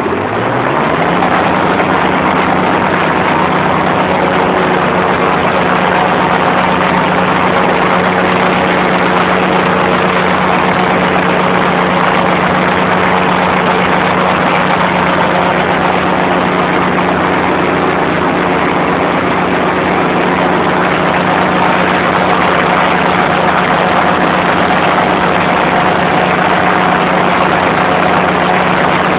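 Ferrari Fox ride-on mower's engine revving up in the first second, then running steadily under load while cutting tall grass.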